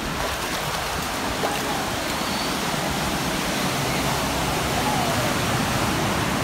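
Fast-flowing water-park river water rushing and splashing around the inner tubes, a steady rush picked up with the microphone right at the water surface.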